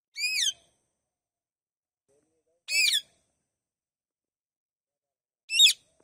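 Indian ringneck parakeets giving three short, shrill calls about two and a half seconds apart, each quickly rising and falling in pitch.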